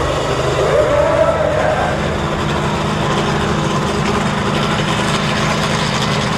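BIGFOOT monster truck's engine running steadily as the truck rolls along at low speed.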